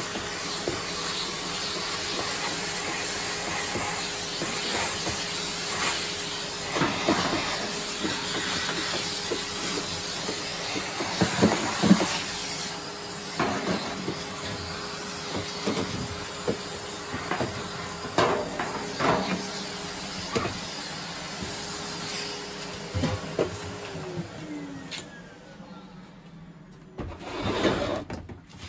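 Vacuum cleaner running with a steady hiss, with occasional knocks as the nozzle is worked about. Near the end it is switched off and its motor winds down, its pitch falling as the rush fades.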